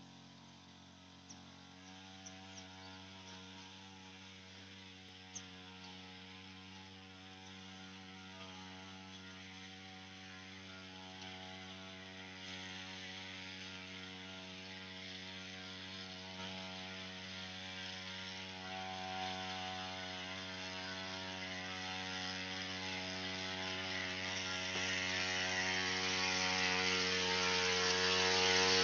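Two-stroke engine of a backpack power sprayer running steadily at constant speed, with a hiss above the engine note, growing steadily louder as the sprayer comes nearer.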